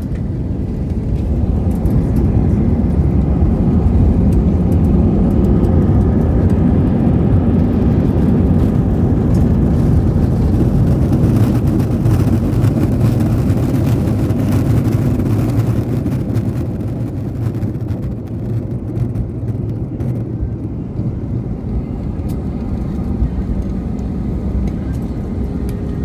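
Airbus A320's jet engines in reverse thrust during the landing rollout, a loud steady rumble heard from inside the cabin. It eases off about sixteen seconds in as the aircraft slows.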